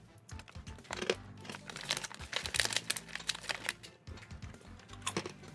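Crinkling and rustling of plastic snack packaging being handled, a run of irregular crackles.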